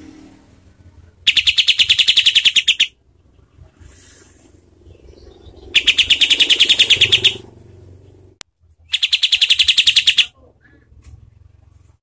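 Olive-winged bulbul (kapas tembak) giving three harsh, very rapid rattling trills. Each trill lasts about a second and a half, with pauses of a few seconds between them. This is the fast 'tembakan' (shot) song used as a tutor song for competition birds.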